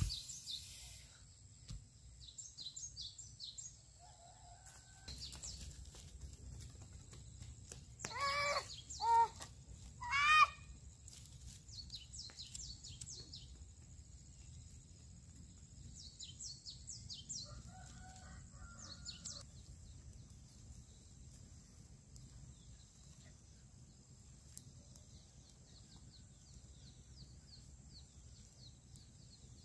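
A rooster crows about eight seconds in, with a second, shorter rising call about two seconds later. Small birds chirp high and briefly now and then over a low steady outdoor background.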